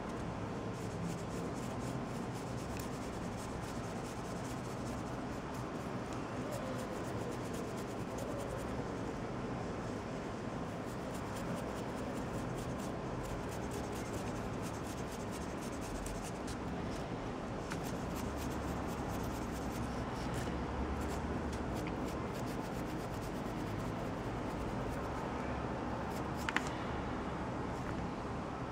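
Bristle paint brush dry-brushing a small skink miniature: quick, scratchy back-and-forth rubbing strokes of a nearly dry brush over the model's raised detail, with one sharp click near the end.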